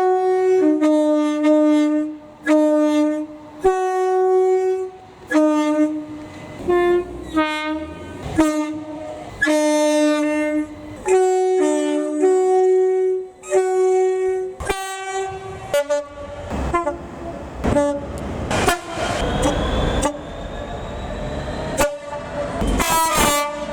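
Class 91 electric locomotive's two-tone horn sounding a long string of blasts that alternate between a high and a low note, played as a multi-tone sequence. Past the middle the train passes with a loud rush of rail and wheel noise, and a few more horn blasts sound near the end.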